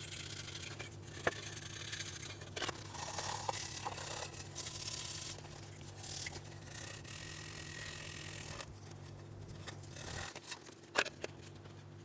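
Irregular scraping and rubbing on a hard surface, with a sharp click about a second in and a louder one near the end, over a steady low hum.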